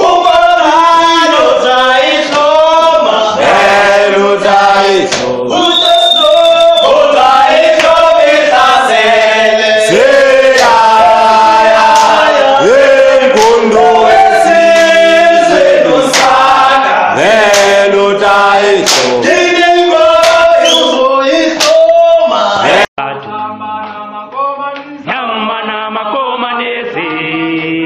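A group of men and women singing and chanting a revolutionary song together, loud and close. About 23 seconds in the sound cuts off abruptly, then the group singing carries on quieter.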